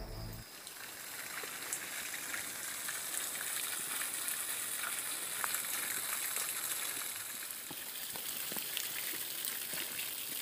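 Spring water gushing from a pipe spout and splashing onto rocks below: a steady, even hiss with small splashes.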